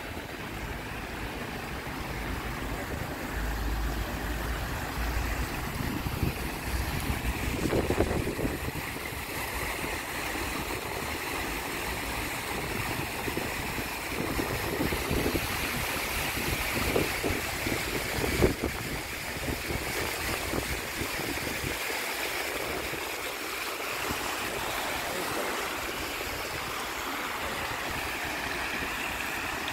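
Water splashing and rushing from a fountain's jets, a steady sound that grows stronger about halfway through, over a low rumble of wind on the microphone.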